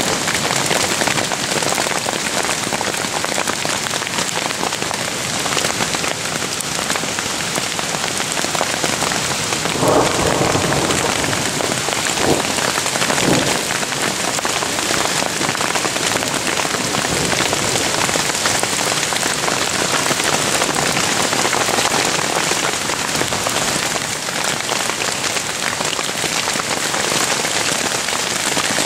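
A hailstorm: hail falling steadily and hitting the tent fabric and the ground around it, a dense, even clatter, with a few louder hits around ten and thirteen seconds in.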